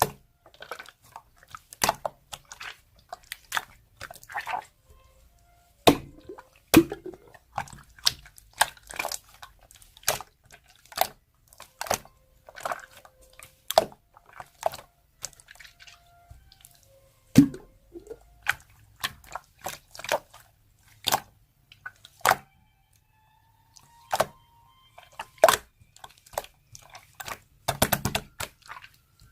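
Close-miked, irregular wet clicks and squishes, sharp and sticky, coming in clusters with short pauses between them.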